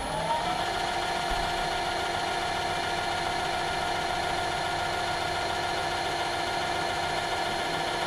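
Metal lathe running at a steady speed just after spinning up, a steady whine of several tones over the motor's hum, while a small centre is drilled into the end of an aluminium piston.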